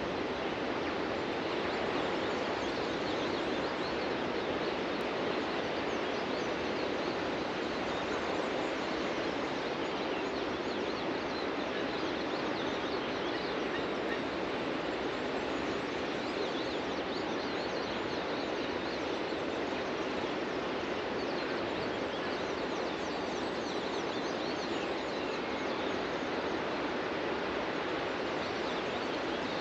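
Ocean surf washing onto a beach as a steady rush, with many birds chirping over it.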